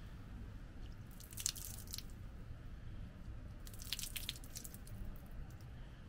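Water poured from a hand ladle over the hands and splashing onto stone at a shrine purification basin, in two short pours: one about a second in, another about four seconds in.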